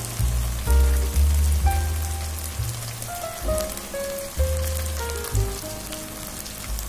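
Sliced onions frying in oil in a wok, a steady hiss with fine crackling, under background music with a melody and a heavy bass line.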